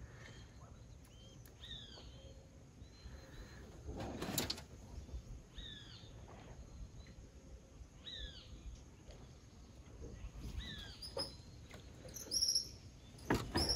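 A bird calling several times, one short call falling in pitch every two or three seconds. There is a single knock about four seconds in and some clattering near the end.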